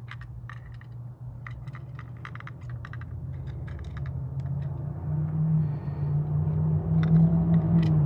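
Quick small metal clicks and taps of hand tools poking out the clogged jets of a snowblower carburetor. From about four seconds in, a low steady rumble builds and grows louder.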